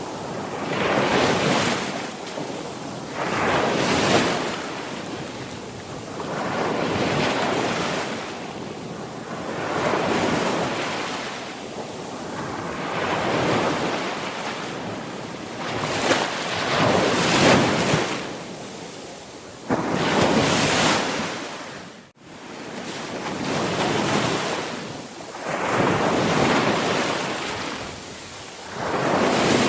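Sea waves breaking and washing on the shore, one surge after another every two to three seconds, each swelling and then fading back. About three-quarters of the way in the sound cuts out for an instant and then resumes.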